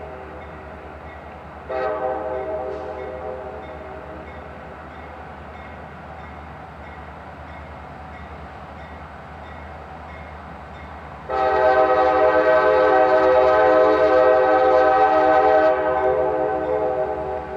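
Air horn of a CSX SD40-2 diesel locomotive blowing a chord: a blast about two seconds in that fades away, then a long, loud blast from about eleven seconds in that holds for some four seconds before dropping off.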